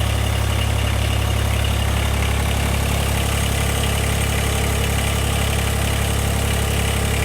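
Rural King RK19 subcompact tractor's diesel engine idling steadily, run after a fresh oil and filter change to check that oil pressure comes up.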